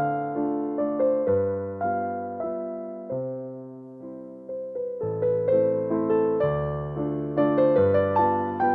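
Background music: a slow electric piano melody over held bass notes, thinning out briefly midway before the chords come back.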